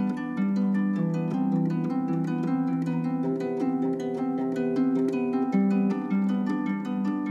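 Instrumental film score led by a harp playing a quick, even run of plucked notes.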